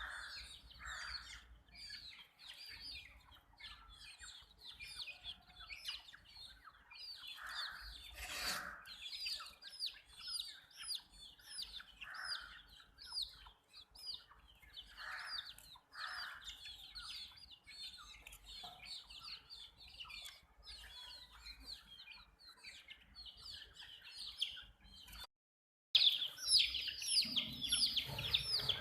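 A brood of baby chicks peeping continuously: many short, high, downward-sliding peeps overlapping, mixed with some lower clucking calls. About 8.5 seconds in there is a single knock, and near the end the sound drops out briefly and returns louder.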